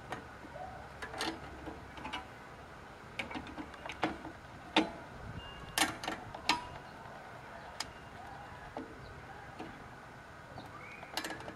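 Irregular sharp metal clicks and clinks of Vise-Grip locking pliers working a drum brake shoe's hold-down spring cup and pin, pressing the cup in against the spring and twisting it to free the pin. The clicks come scattered, with the sharpest ones near the middle.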